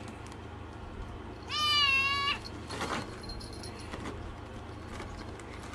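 A cat meowing once, a single drawn-out, high-pitched meow lasting just under a second.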